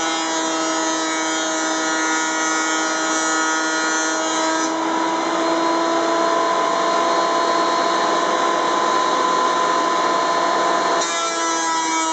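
Ridgid 13-inch benchtop thickness planer running with a steady high motor whine. A board is being cut, with a loud rushing noise over the whine, until about four and a half seconds in. The planer then runs empty with only the whine, and the next board starts through the cutterhead about a second before the end.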